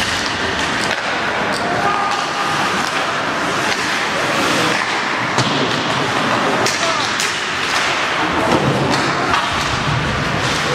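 Ice hockey game in play: repeated sharp knocks of puck and sticks and thuds against the boards, over spectator chatter.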